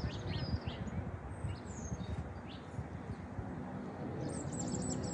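Small birds chirping: scattered short high calls, then a quick run of notes near the end, over a low, uneven rumble of outdoor background noise.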